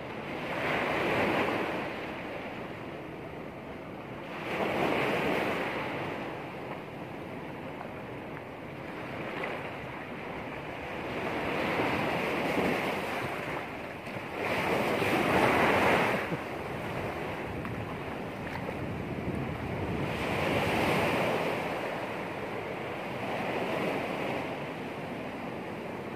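Small waves breaking and washing up a sand beach. The surf rushes in and swells every few seconds, then recedes into a steady hiss.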